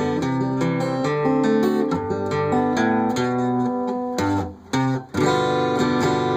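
Acoustic guitar fingerpicked in a Travis-picking pattern: steady bass notes under a quick run of plucked melody notes. The playing breaks off briefly a little past the middle, then a chord rings out.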